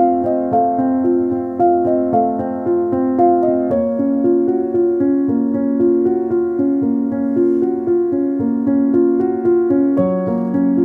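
Background music: a gentle piano melody over repeating broken chords, the harmony shifting about four seconds in and again near the end.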